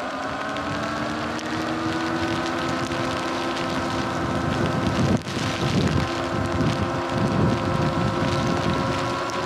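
Sur-Ron electric dirt bike's motor and drive whining, rising slightly in pitch at first and then holding steady at cruising speed, over a hiss of tyres on the wet road. Wind buffets the microphone heavily from about five seconds in.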